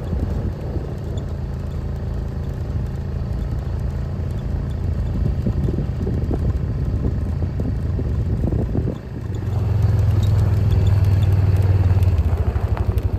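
An engine running steadily, getting louder about nine seconds in.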